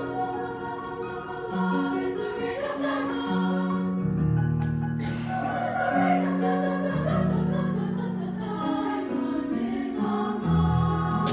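Women's choir singing sustained chords in harmony, with piano accompaniment holding low notes beneath the voices.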